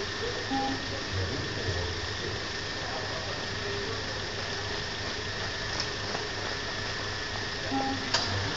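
Two short electronic beeps from a beep-test recording, about seven seconds apart, over a steady background hiss; each beep signals the end of a shuttle run. A sharp click follows just after the second beep.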